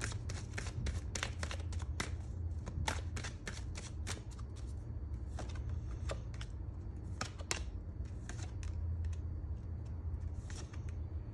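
Tarot cards being shuffled by hand: a quick run of crisp snaps and flicks, thinning to scattered snaps after about four seconds as single cards are drawn from the deck. A steady low hum runs underneath.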